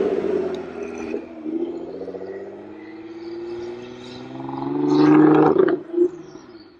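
Nissan GT-R's twin-turbo 3.8-litre V6 exhaust under hard acceleration as the car pulls away. The note first falls and fades after the car passes, then climbs steadily in pitch and loudness to a peak about five seconds in. It breaks off abruptly with a sharp crack near six seconds, then fades.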